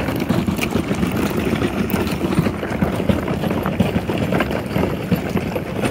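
Small wheels of a roller cart rolling over loose gravel: a steady, loud grinding crunch made of many small irregular clicks and rattles.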